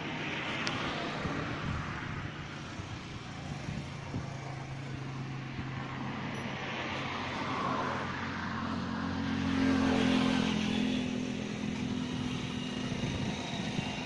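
A motor vehicle engine running steadily with a low hum, getting louder for a couple of seconds about ten seconds in.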